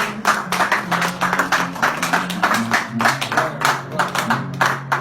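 Audience clapping, dense and uneven, over the low sustained notes of the band's instrumental accompaniment.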